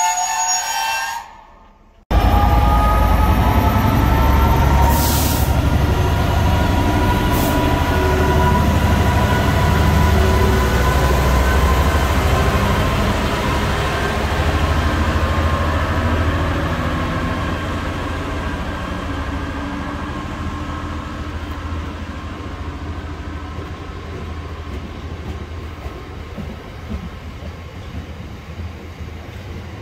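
A Class 66 diesel locomotive's two-stroke EMD engine passes close by, hauling a freight train: a heavy low rumble with a high, slowly falling whine, cutting in after a short break about two seconds in. The loaded box wagons then roll past, and the sound slowly fades.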